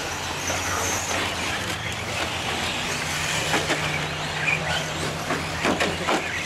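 Electric 4x4 short course RC trucks racing on a dirt track: a steady mix of motor whine and tyre noise, with a run of short knocks in the second half.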